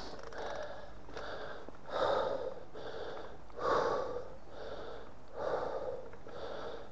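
A cyclist's heavy, rhythmic breathing, panting from the effort of pedalling up a steep climb, with a puff about once a second.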